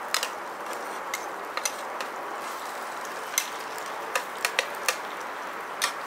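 Okonomiyaki and eggs sizzling steadily on a Snow Peak Grill Plate Half (deep type) over charcoal. Metal spatulas scrape and tap against the plate in sharp clicks, about ten of them, clustered around the second and around four to five seconds in.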